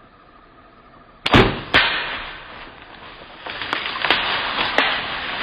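A compound bow shot at a doe a few yards away: a sharp crack, a second crack about half a second later, then loud crashing as the deer bolts off through brush and dry leaves.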